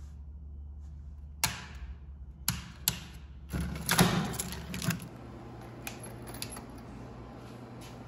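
Plastic clicks and clatter of a Notifier NBG-12LX fire alarm pull station being shut and reset with its key, with a key ring jangling: a few sharp single clicks, then a louder burst of clatter about four seconds in.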